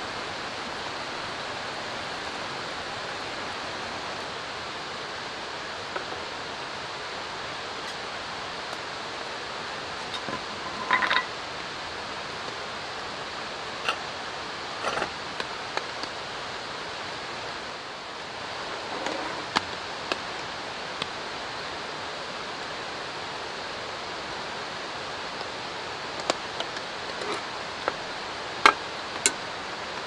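Steady rush of drizzling rain and running water. A dozen or so light clicks and clinks of utensils against metal cookware stand out from it, the loudest about a third of the way in and near the end.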